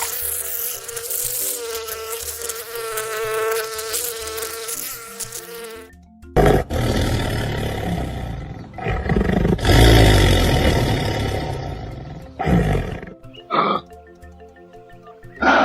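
Recorded animal calls over background music: a wavering buzz for about six seconds, then a long, loud, rough call, then a few short calls near the end.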